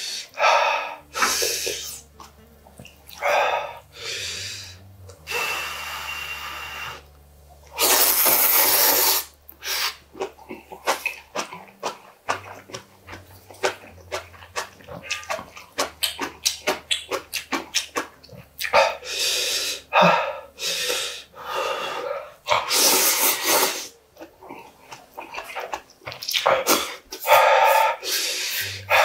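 Close-miked eating of spicy instant ramen: long, loud slurps of noodles and broth, with a fast run of wet chewing clicks in the middle, and hard breaths between mouthfuls.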